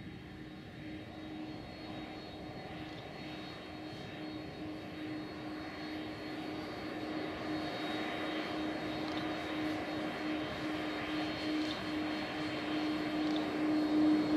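Boeing 767 jet engines running at taxi idle as the airliner rolls past: a steady hum with a thin high whine, growing louder as the aircraft draws nearer.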